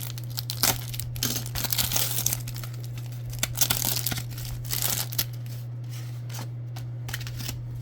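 Crinkling and tearing of a trading-card pack wrapper being handled and ripped open, busiest in the first five seconds and then quieter, over a steady low electrical hum.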